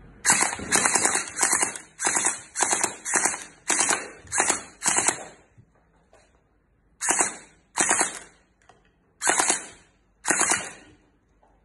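Electric gel ball blaster firing short bursts of automatic fire, each a rapid rattle of shots under half a second long: nine bursts back to back, a pause of about a second and a half, then four more spaced bursts.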